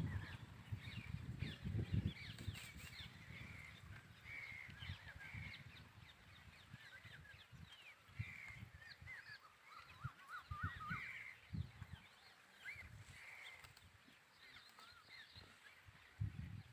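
Birds chirping and calling, many short calls scattered throughout, with a quick run of calls about ten seconds in. Irregular low thumps sit underneath.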